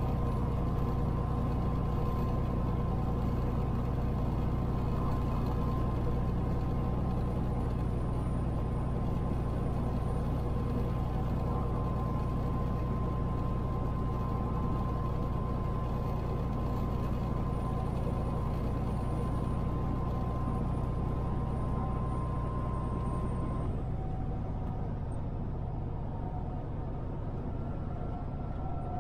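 Semi truck's engine running steadily under road noise while driving. About 24 seconds in, the low engine note drops away and the sound thins out.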